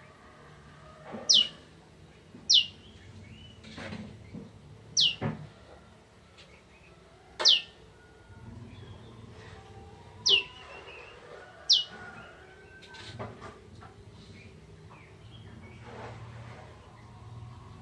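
A prenjak (prinia) calling: six loud, sharp notes, each sweeping quickly down in pitch, spaced one to three seconds apart.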